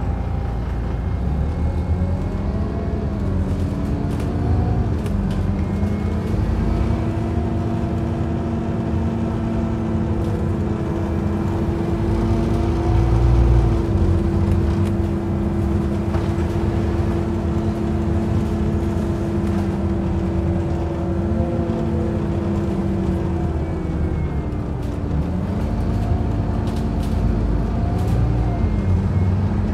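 Scania OmniCity single-deck bus heard from inside the saloon while driving: a steady engine and drivetrain hum over road noise, its pitch rising and falling several times as the bus speeds up and slows.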